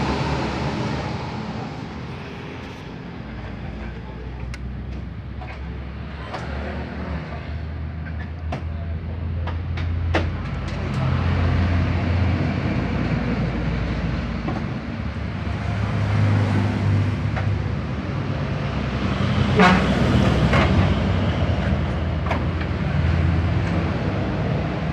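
Low rumble of a running vehicle engine that swells and eases, with scattered light clicks and taps and a brief louder clatter about twenty seconds in.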